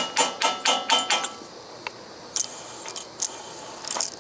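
Hammer blows on a brass drift against the starter clutch of an 8 hp Briggs & Stratton engine, driving it loose for removal: a steady run of ringing metal strikes, about three a second. The strikes stop after about a second, and a few lighter metal clinks follow.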